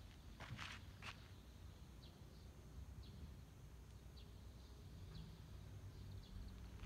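Quiet outdoor ambience: a couple of footsteps crunch on a gravel path within the first second, then faint, brief bird chirps with a steady low rumble underneath.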